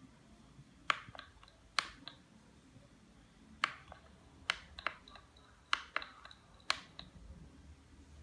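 Sharp plastic clicks of the direction buttons on a Foscam FBM3501 baby monitor's handheld parent unit being pressed, about ten clicks, several in quick pairs, while the camera is steered.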